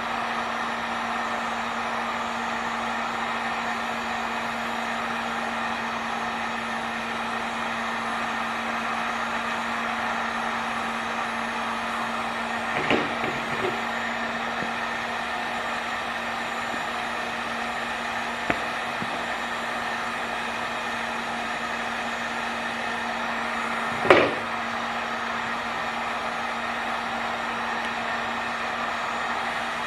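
Heat gun running steadily, a blowing hiss with a constant hum from its fan motor. A few short knocks break in, the loudest about two thirds of the way through.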